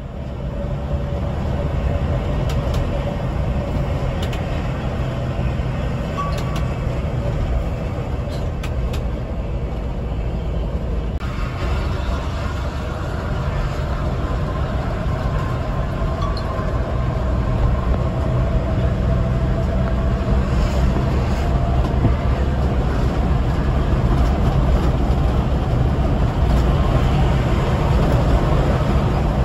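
Scania K360IB coach under way on the road: steady engine drone and road rumble. The noise turns brighter and a little louder about eleven seconds in.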